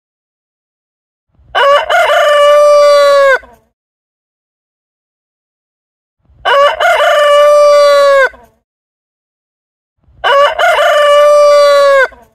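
Rooster crowing three times, each crow about two seconds long with a short broken opening and a long held note that falls away at the end.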